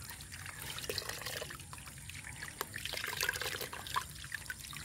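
Water splashing, trickling and dripping in a bucket as a clump of freshly dug ginger rhizomes is swished and rubbed clean by hand, with many small irregular splashes.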